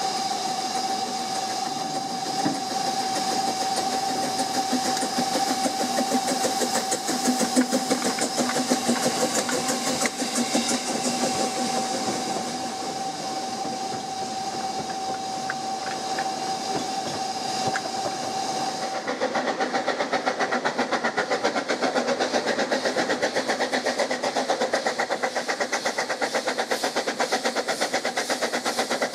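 Ffestiniog Railway double Fairlie steam locomotive 'Earl of Merioneth' and its coaches passing, with a steady high-pitched tone and steam hiss over the rolling train. About two-thirds of the way in, the sound changes to the locomotive working toward the listener with a quick, even exhaust beat.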